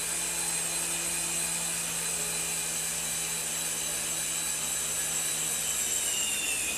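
Small electric motor and rotors of a toy remote-controlled helicopter in flight, a steady high-pitched whine. The pitch sags slightly near the end.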